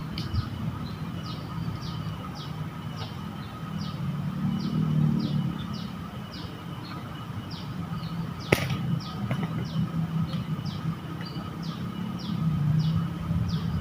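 Outdoor ambience: a short, high, falling chirp repeated about twice a second, over a low steady rumble. There is one sharp click a little past halfway.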